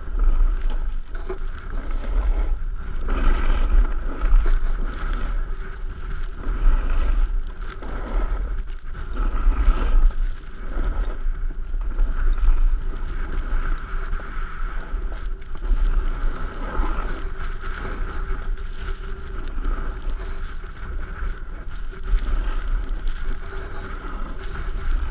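Rushing wind buffeting the microphone and the scrape of the rider sliding over packed snow while towed behind an SUV on a rope. The low buffeting swells and fades every second or two under a steady hiss.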